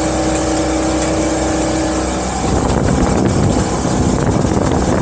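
Motorboat under way: the MerCruiser MPI sterndrive engine runs with a steady hum over the rush of water. About two seconds in, the engine tone gives way to a loud rushing of wind and water.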